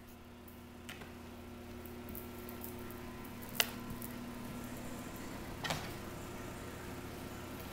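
A few light taps and knocks over a steady low hum, the sharpest a single click about three and a half seconds in and a duller knock near six seconds.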